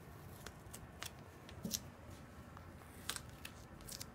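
Masking-tape tabs being peeled off paper and cardboard: faint, scattered ticks and rustles.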